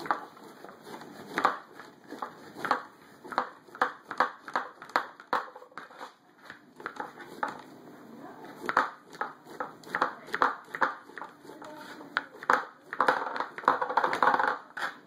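Chef's knife chopping mushrooms on a cutting board: a run of quick, uneven knocks of the blade on the board, about two a second.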